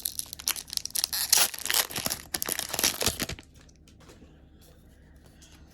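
A Lorcana trading-card booster pack's wrapper being torn open and crinkled: a dense crackling that stops about three and a half seconds in.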